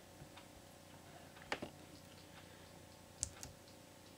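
A few faint clicks of computer keys, with two louder pairs about a second and a half apart, as presentation slides are advanced.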